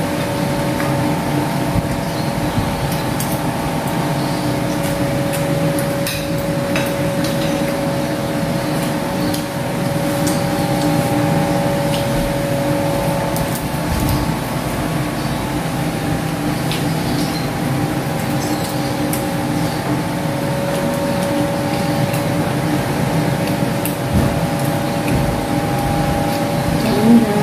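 A steady droning hum with several held tones that shift pitch now and then, with forks and spoons clinking lightly on plates from time to time.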